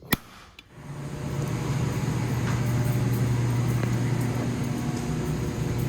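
A couple of sharp clicks, then a steady low hum of boiler-room machinery that swells in about a second in and holds.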